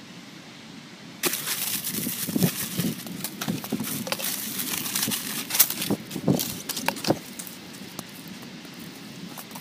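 Crumpled aluminium foil crinkling and crackling as it is handled. It starts suddenly about a second in and dies down after about seven seconds.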